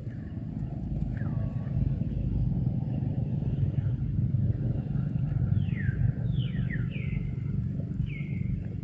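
Steady low rumble, with a run of short high chirping calls about half a second to a second apart from around five seconds in, each sliding down in pitch.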